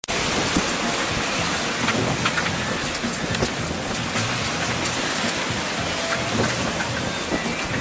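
Wind rushing and buffeting the microphone in a steady, loud noise, with choppy lake water splashing.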